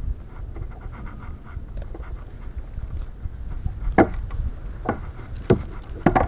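Wind rumbling on the microphone of a kayak-mounted camera, with a few sharp knocks and thumps from handling on the kayak: one about four seconds in, another a second later and a quick cluster near the end.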